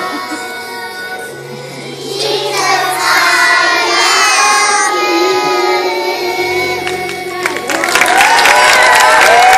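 A group of young children singing together over a recorded backing track. Near the end they hold a long final note as applause and cheering break out.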